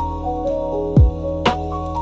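Slow, smooth-jazz lounge music: a deep kick drum about a second in and a sharp backbeat hit half a second later, under sustained chords and a melody of held notes.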